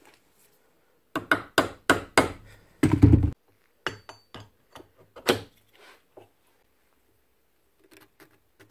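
Sharp tool knocks on the miter saw motor's armature during a bearing change: five or six quick strikes about a second in, the last the heaviest, then a few lighter knocks and faint clicks.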